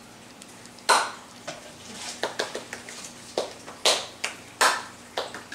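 Hands clapping in an uneven, arrhythmic string: one sharp clap about a second in, then claps coming thicker and faster. It is an attempt to clap out a tune, with no rhythm to it at all, just chaotic clapping.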